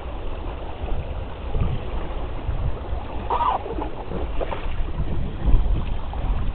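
Wind buffeting the microphone and water rushing along the hull of a small wooden sailing proa under way in choppy water, with gusty low rumbles. A short higher-pitched sound comes about halfway through.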